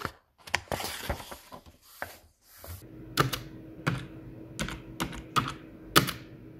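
Intro sound effects: a book cover swinging open with a rustle of pages, then about six typewriter key strikes, roughly two a second, as title letters appear, over a faint steady hum.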